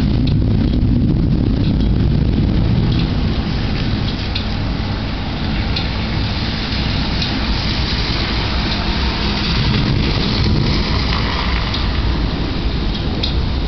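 Thunderstorm: steady heavy rain noise with a deep continuous rumble underneath and a few faint drip-like ticks.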